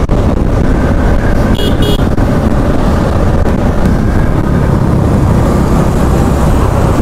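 Riding noise from a Bajaj Platina 110 motorcycle on the move: a steady dense rush of engine, road and wind noise, with a brief horn toot about one and a half seconds in.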